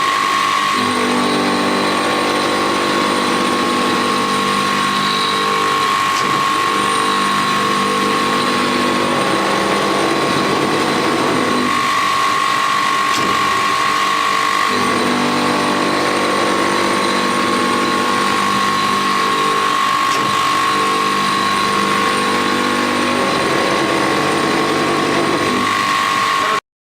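Knife-sharpening machine for crusher blades running: a steady high whine, with a lower humming that comes in for stretches of about ten seconds and drops out between them. The sound cuts off suddenly near the end.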